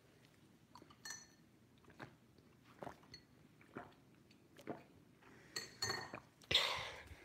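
Light knocks and small clinks of hard objects, about one a second, some with a brief ring, and a louder knock near the end.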